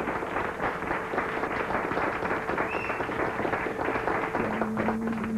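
Studio audience applauding, with a steady held note under the clapping. A second, lower held note joins near the end.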